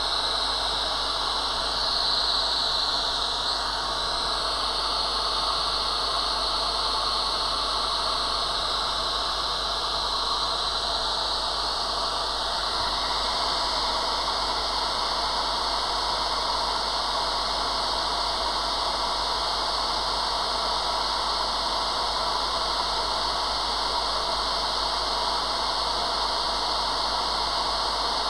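Hot air rework gun blowing a steady, constant hiss of air onto a phone logic board, heating the board.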